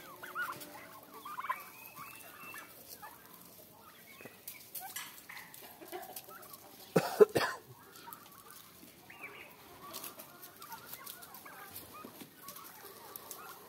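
A flock of young turkeys calling softly, with scattered small clucks and peeps, and a short loud burst about seven seconds in.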